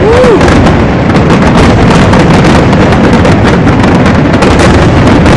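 Aerial firework shells bursting in a rapid, unbroken barrage, the bangs running together. The barrage is very loud throughout.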